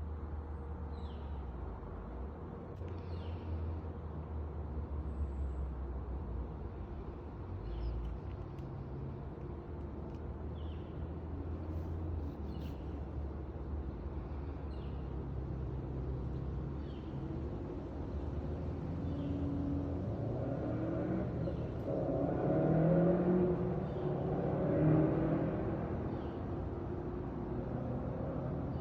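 Outdoor ambience: a steady low rumble like distant road traffic, with faint short chirps every second or two. The rumble swells louder about two-thirds of the way through.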